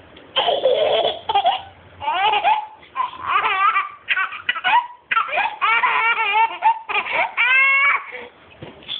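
A toddler laughing hard in a quick string of high-pitched bursts, ending with one longer drawn-out laugh.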